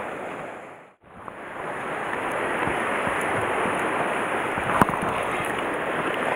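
Steady wash of sea surf against the rocks mixed with wind on the microphone; the sound fades out and back in about a second in, and there is a single sharp click near the end.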